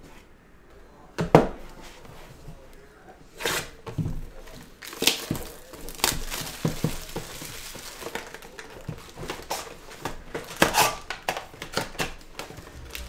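Clear plastic shrink wrap crinkling and tearing as it is stripped off a cardboard trading-card box, with several sharp knocks of the box being handled, the loudest about a second in.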